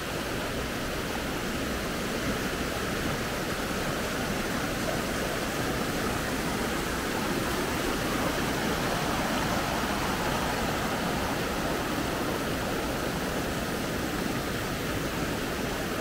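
Water rushing steadily down small cascades over smooth rock, an even, unbroken roar of white water.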